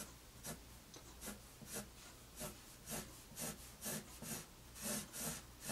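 Pencil scratching on paper in short, repeated back-and-forth strokes, about two a second, drawing a light line.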